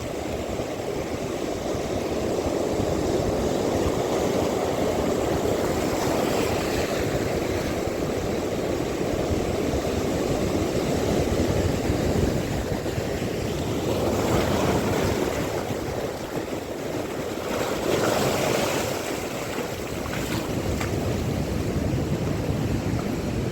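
Wind rushing over the microphone with sea waves washing, swelling twice in the second half.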